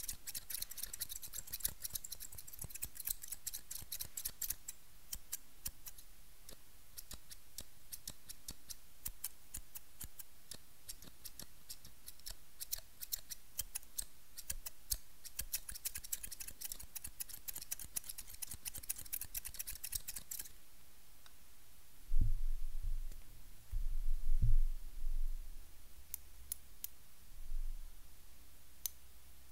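Steel barber's scissors snipping rapidly right at the microphone, many crisp snips a second, thinning out after about twenty seconds. Near the end a few low, dull thumps of handling are the loudest sounds.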